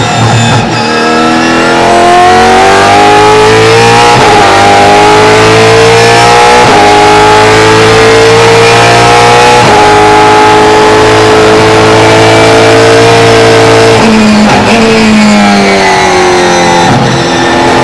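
Race car engine heard from inside the cockpit, accelerating hard through the gears, with upshifts about every three seconds and then high revs held. About 14 seconds in the revs fall with quick downshifts under braking, then climb again as it pulls out of the corner.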